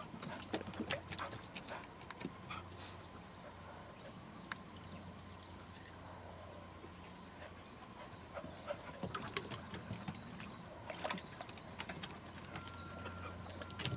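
Lagotto Romagnolo dogs moving about in hot-tub water, making irregular splashes and drips. The splashing is busiest in the first few seconds and again later on, over a steady low hum.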